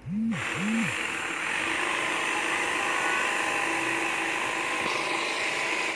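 Electric jigsaw cutting a plywood sheet: the motor revs up and down twice in the first second, then runs steadily through the cut.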